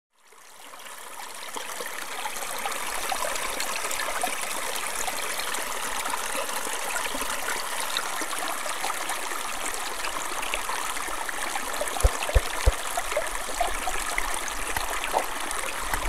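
Small clear forest stream splashing over rocks in a little cascade: a steady rush and trickle of running water that fades in over the first two seconds. A few short low thumps come about twelve seconds in.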